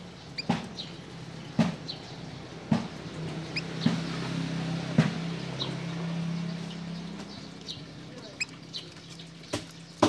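A small red finch giving short, high chirps at scattered moments, with several sharp knocks about a second apart and a low steady hum in the middle.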